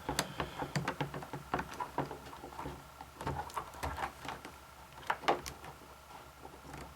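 Irregular small clicks and knocks of hands and tools working the trigger assembly loose from an airsoft V3 gearbox, with one sharper knock a little past five seconds in.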